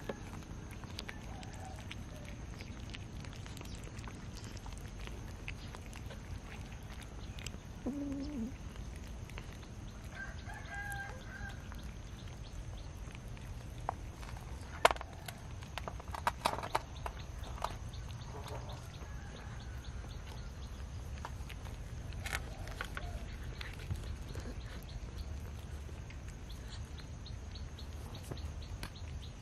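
Cats eating cooked rice from a metal tray: eating noises and a handful of sharp clicks and taps, loudest around the middle, over a steady low hum. A few short bird calls come through in the background.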